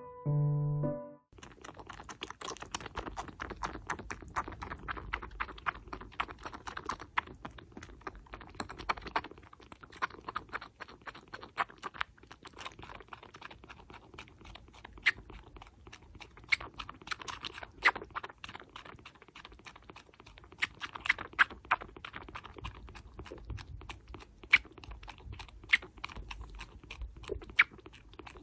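Four-week-old kitten suckling milk from a feeding bottle close to the microphone: rapid, irregular wet sucking clicks and smacks at the nipple. Piano music cuts off about a second in.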